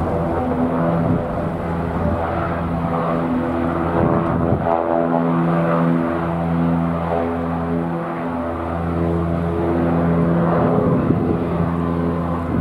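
Aircraft engines droning loudly and steadily, a low pitched hum with a stack of overtones, broken up now and then by gusts of wind on the microphone.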